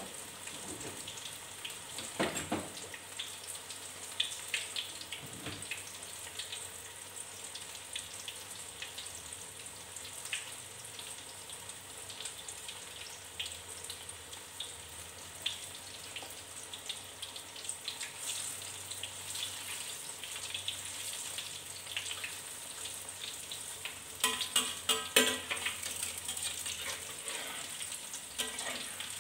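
Corn fritters frying in hot oil in a wok: a steady crackling sizzle. Near the end, a louder clatter of a wooden spatula in the wok as the fritters are moved.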